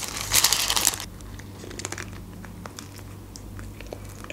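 Paper fast-food wrapper crinkling loudly for about a second as a tortilla wrap is pulled out of it, then soft scattered mouth clicks as the wrap is bitten into.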